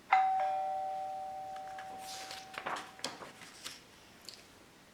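Doorbell chime ringing a two-note ding-dong: a higher note, then a lower one a fraction of a second later, both ringing out and fading away over about three seconds. A few faint clicks follow near the end.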